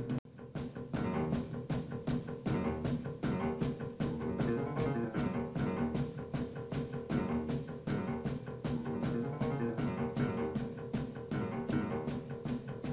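Background music with a steady beat over sustained tones, briefly cutting out just after the start.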